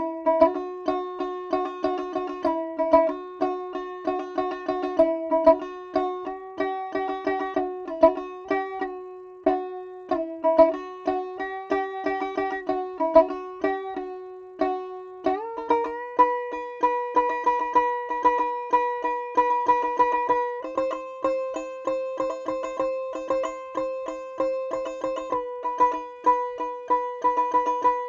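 Instrumental music on a plucked string instrument, rapidly repeated picked notes carrying a slow melody; about halfway through the melody moves higher and settles into longer held notes.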